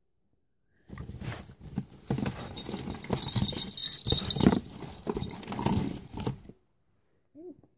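Green putty slime squelching and crackling as it is squeezed and stretched close to the microphone: a dense run of squishes and clicks that starts about a second in and stops abruptly over a second before the end.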